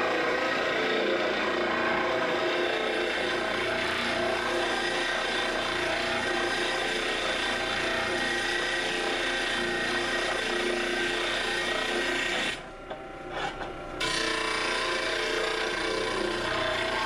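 Steel rectangular tube ground on a large electric disc sander: a steady abrasive rasp of steel on the spinning disc over the motor's hum. The grinding drops away briefly about twelve and a half seconds in, then resumes.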